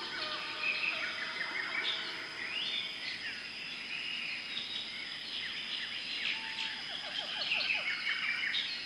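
Many birds calling and chirping at once, quick overlapping chirps and trills, over a steady high-pitched tone.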